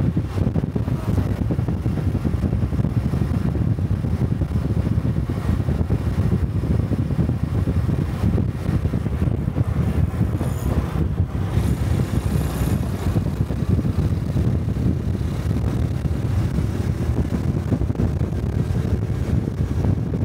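Honda Cub 125 motorcycle's air-cooled single-cylinder engine and exhaust running steadily while riding, mixed with wind rumbling on the microphone.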